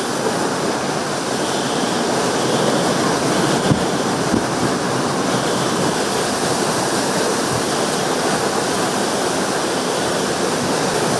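Hurricane wind and heavy rain: a steady, dense rushing noise with a couple of faint knocks about four seconds in.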